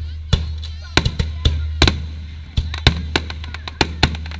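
Aerial fireworks bursting: a quick run of sharp bangs, about two or three a second, over a steady low hum.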